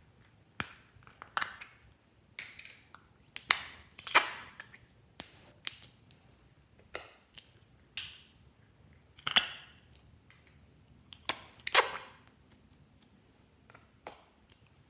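Small plastic slime tubs being handled and their snap-on lids prised open: a string of about a dozen sharp plastic clicks and pops at irregular intervals.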